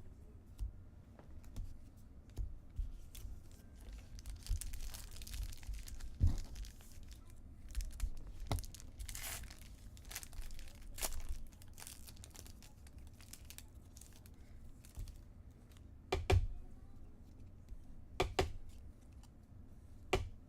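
Foil trading-card pack wrappers being torn open and crinkled, in rustling stretches, with a few sharp taps from cards being handled.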